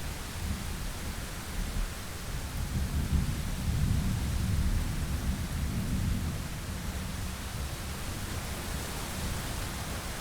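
Thunder rumbling low, swelling about two or three seconds in and dying away by about six seconds, over a steady hiss of rain.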